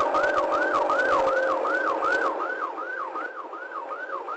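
Police car's electronic siren on its fast yelp, a rising and falling wail repeating about three times a second. A rough crackling noise runs under it and drops away a little past halfway.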